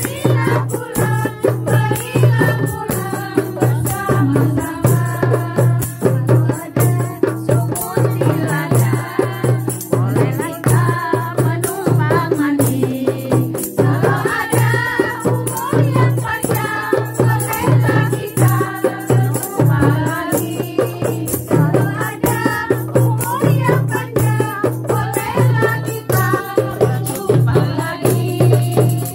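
Women's group singing a Malay-Indonesian song together, accompanied by rebana frame drums beating a steady, even rhythm.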